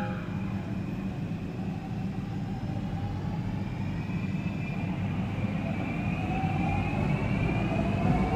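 A metro train with permanent-magnet synchronous (PMSM) traction motors pulling out of the station. A low rumble of the train running carries a faint motor whine that rises in pitch from about halfway through as the train gains speed, growing a little louder near the end.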